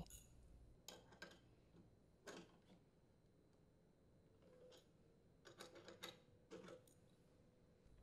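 Near silence broken by a few faint metallic clicks and ticks, a small cluster of them about two-thirds through: a wrench and socket working the ignition coil's mounting bolt and post on a Honda small engine while the coil is set to the flywheel gap.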